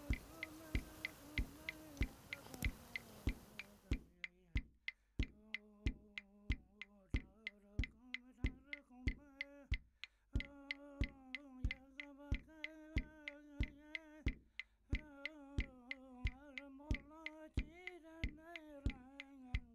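A voice singing a drawn-out, wavering chant over a steady beat of sharp percussive clicks, about two to three a second.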